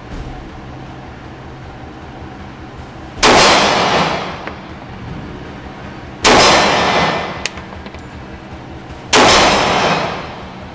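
Three shots from an H&K USP Compact pistol in .40 S&W, about three seconds apart, each ringing out for about a second in the echoing indoor range.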